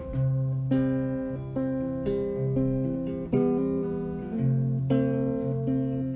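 Soundtrack music: an acoustic guitar picking slow notes and chords, each note ringing out and fading before the next.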